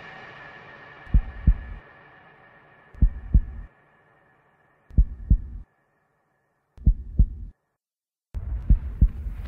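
Heartbeat sound effect in the soundtrack: four pairs of low double thumps, about two seconds apart, as the music fades away. The music kicks back in near the end.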